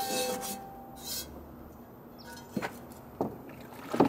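A scrub brush rasping briefly on a cast iron skillet, followed by three sharp metallic knocks and clinks of the pan being handled in the second half, the last the loudest.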